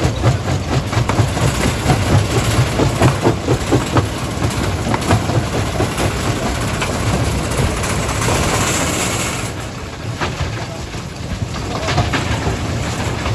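Stone crushing machinery running: a steady low engine rumble under dense clattering and knocking of rock, easing briefly about ten seconds in.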